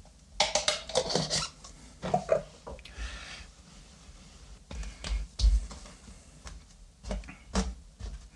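Seasoning shaken from a jar onto raw pork neck, then hands patting and rubbing the rub into the meat on a cutting board: scattered taps and rustles, with soft thumps about five seconds in.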